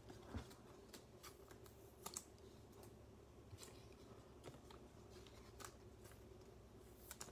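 Faint, scattered light clicks and taps of trading cards being handled and set down, over a faint steady hum.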